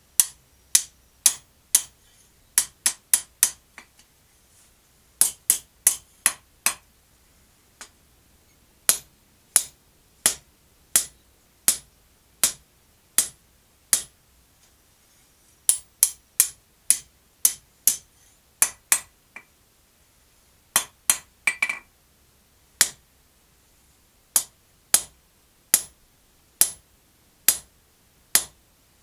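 Blacksmith's hand hammer striking red-hot steel on an anvil as the bar is forged into a heart shape: dozens of sharp metallic blows in runs of about two to three a second, with short pauses between runs.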